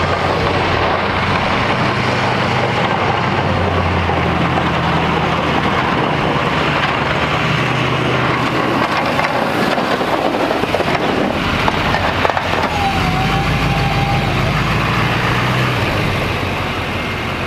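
Plow pickup truck's engine running with a low hum that rises and falls, under a loud, steady rushing noise.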